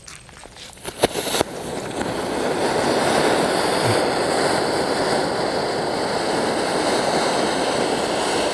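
Standard 'Magic Tree' fountain firework (anar) spraying sparks with a steady rushing hiss. It catches about a second in with a couple of sharp cracks, then builds up over the next two seconds.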